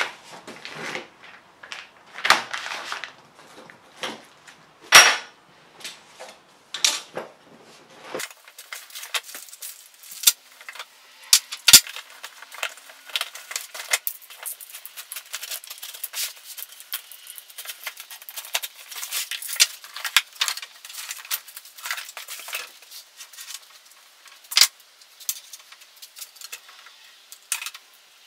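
A boxed stud-welder dent puller being unpacked by hand. For the first several seconds there is rustling of cardboard and packing with a few knocks, the loudest about five seconds in. After that comes a long run of light clicks and clinks as small metal attachments, bagged parts and cables are taken out and set down on the workbench.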